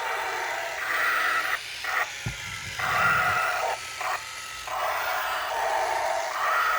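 Electronic sound effects from a toy spaceship's small speaker: a buzzy tone that switches back and forth between a higher and a lower pitch. About two seconds in there is a break, with a short low buzz and a click.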